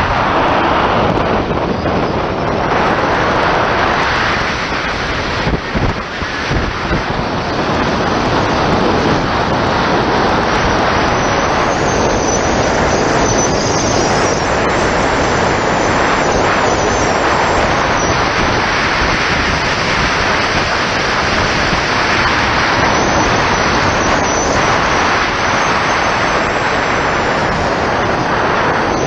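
Wind rushing over the camera microphone of a bicycle on a fast road descent, a loud, steady rush of noise.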